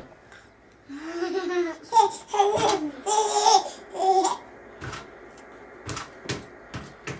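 Young children laughing, a string of short high-pitched giggles and squeals for about three seconds, followed by a few short, sharp knocks.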